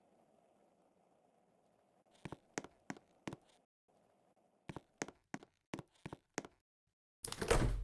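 A run of short, sharp taps or knocks, about three a second, in two groups, then a loud brief rustling burst near the end.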